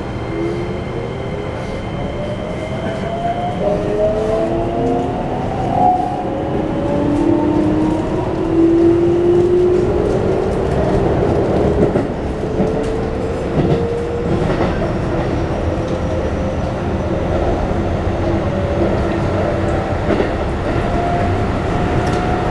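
Keikyu New 1000 series train's Toyo IGBT-VVVF inverter and traction motors accelerating away from a station, heard inside the passenger car. Several whining tones climb in pitch in steps over the first ten seconds, then settle into a steadier, slowly rising tone over the rumble of the wheels on the rails.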